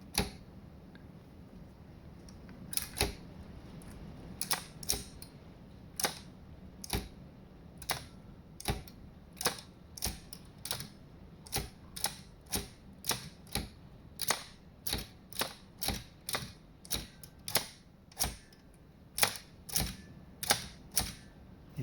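Keys of a circa-1909 Thürey typewriter struck one after another, each a sharp mechanical clack of the type cylinder being set and the hammer and escapement working. About 25 strokes at roughly one a second, starting a couple of seconds in, some in quick pairs.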